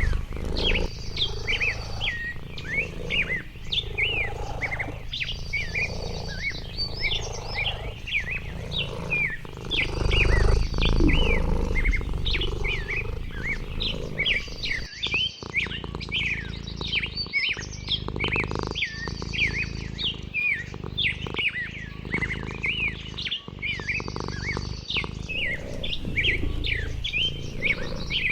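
Wild birds chirping and calling in a dense chorus, with a short, high buzzy song phrase repeating every few seconds. A low rumble underneath swells about ten seconds in.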